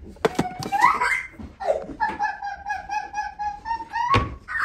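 Young child laughing: a long, high, pulsing laugh held for a couple of seconds, with a few clicks at the start and a sharp knock near the end.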